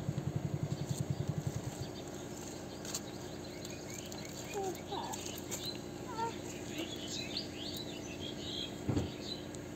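Outdoor ambience with scattered bird chirps and faint distant voices over a steady low hum; a rapid low throbbing fades out about two seconds in, and there is a single thump near the end.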